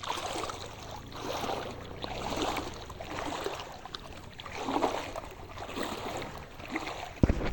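Floodwater splashing and sloshing in regular swells about once a second, with a loud thump near the end.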